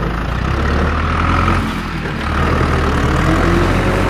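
A heavy engine running steadily at idle, a deep even hum with little change.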